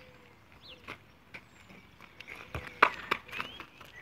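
Scattered light taps and scuffs of a football and sneakers on asphalt, with a sharper knock nearly three seconds in and another just after. Faint short chirps in the background.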